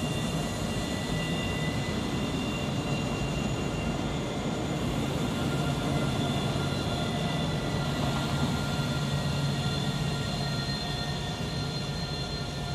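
Alstom Citadis tram running slowly along the track in a cutting: a steady low rumble with several steady high-pitched electric whines over it.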